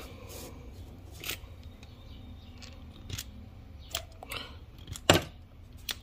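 Light metallic clicks and clacks from a Ford 5.0 V8 timing chain tensioner being handled and its plunger pressed in, with the sharpest click about five seconds in. The tensioner compresses too easily, which the mechanic takes for a sign that it is not holding the chain as it should.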